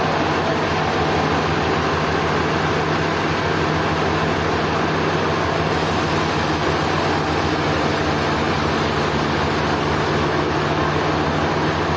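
Sawmill machinery running steadily: a constant mechanical hum under an even rushing noise, with no change in pitch or level.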